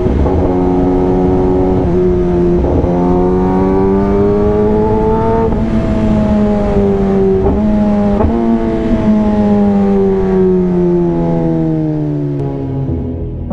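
Kawasaki ZX-10R's inline-four engine and exhaust running at cruising speed, its pitch climbing slowly for about five seconds and then sliding gradually back down as the throttle eases.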